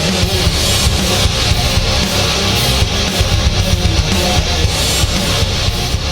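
Intro music: loud, distorted electric guitar rock over drums, heavy-metal in style.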